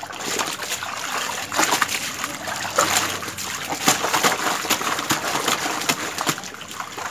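A wet towel being lifted, plunged and rubbed by hand in a plastic tub of soapy water, with irregular splashing and sloshing and water dripping back into the tub.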